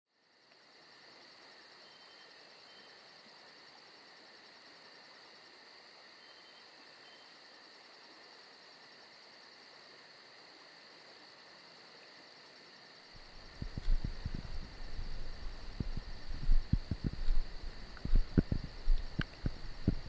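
Insect chorus in tropical forest: several steady high trills with a rapid pulsing very high note over them. About two-thirds of the way in, irregular knocks and rustles start and become the loudest sounds.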